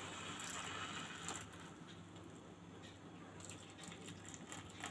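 Milk poured onto hot grated carrots fried in ghee in a kadai: a faint pouring sound with a light sizzle and crackle, fainter after the first second and a half.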